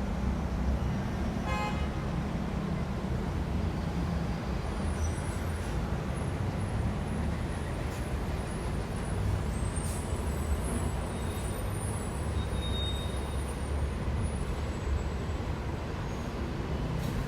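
City street traffic: a steady low rumble of passing engines and tyres, with a short high-pitched tone about a second and a half in.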